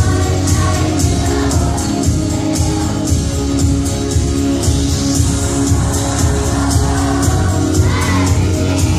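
Group of elementary-school children singing together over musical accompaniment with a steady beat.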